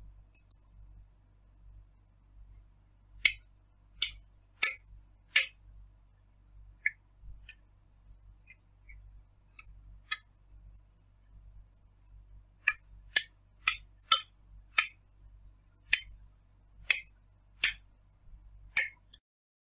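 Miniature circuit breakers in a home distribution board being switched off one after another, each toggle giving a sharp click. About a dozen loud clicks come, some in quick runs of three or four, with fainter clicks between.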